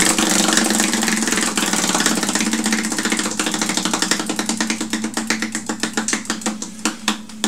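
Spinning prize wheel, its clicker flapping against the rim pegs in a fast run of ticks. The ticks slow and spread out as the wheel loses speed and comes to rest near the end.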